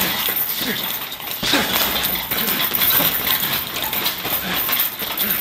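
A medicine ball is thrown again and again against a hanging heavy bag, landing with a thud about once a second, with short grunts of effort in between.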